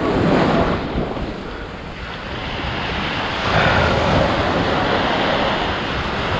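Ocean surf washing up the beach at close range, the wash swelling again about halfway through, with wind buffeting the microphone.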